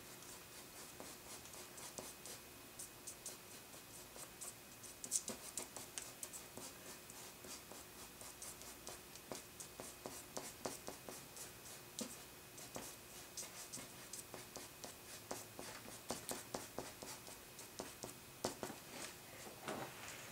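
Faint, quick scratching strokes of an eraser held flat on its side and rubbed across charcoal on drawing paper, lifting out a blurry group of hair highlights. The strokes come irregularly, in short bunches.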